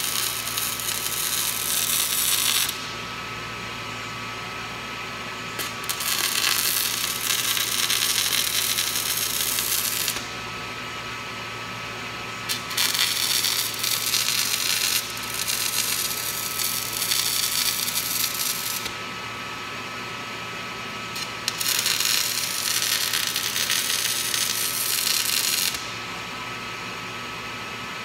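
Arc welding on a steel corner post: the arc crackles steadily in runs of a few seconds, four times, each broken off by a short pause. A steady electrical hum runs underneath.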